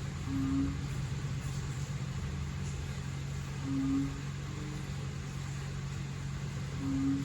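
A steady low hum with rumble underneath. Short, flat low tones come in three times, a few seconds apart.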